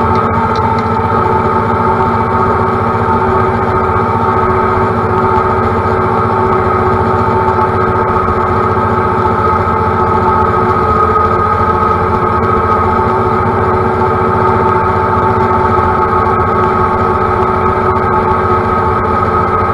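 John Deere compact utility tractor's diesel engine running steadily at working speed while mowing grass, its pitch and level holding constant.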